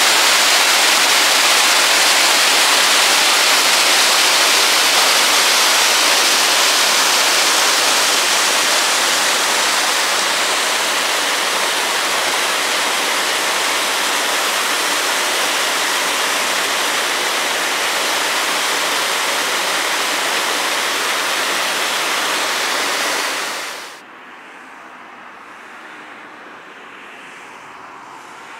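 Water pouring over a weir below sluice gates: a loud, steady rush of falling water. Near the end it cuts off suddenly, leaving only faint background noise.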